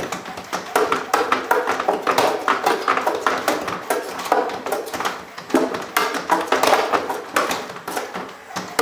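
Unitree Go2 robot dog's feet tapping and scraping on wooden stair treads in a rapid, irregular clatter as it struggles and fails to climb the steps.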